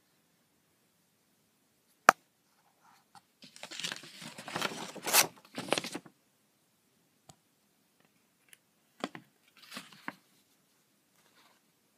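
Paper packaging rustling and crinkling as it is handled, with a sharp click about two seconds in, a longer burst of crackling in the middle, and a few more crackles near the end.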